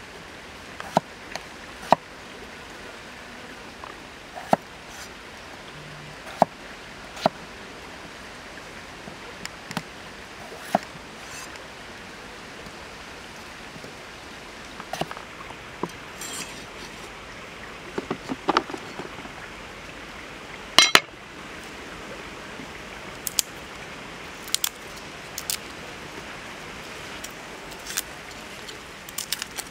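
Kitchen knife chopping peeled potatoes on a cutting board: single sharp knocks of the blade striking the board every second or two, with a loud double knock about two-thirds of the way through, over a steady background hiss.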